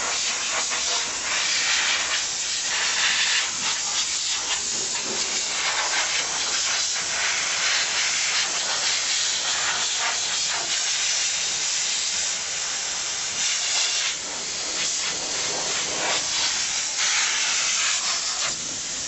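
Dry vapor steam cleaner hissing continuously as it jets superheated, low-moisture steam (about 250°F, 5–10% moisture). The hiss swells and eases, briefly dipping a few times.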